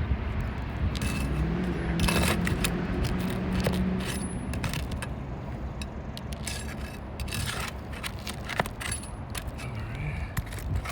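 Steel flat bar prying roofing nails and asphalt shingles loose: a run of metallic clinks and scrapes at irregular intervals.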